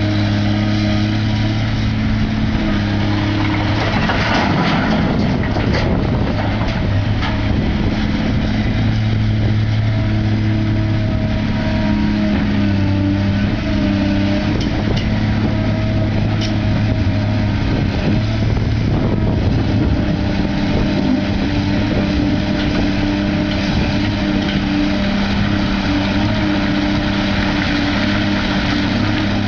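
Large heavy-equipment diesel engine running steadily, its pitch shifting slightly at times, with a brief burst of rougher noise about four to six seconds in.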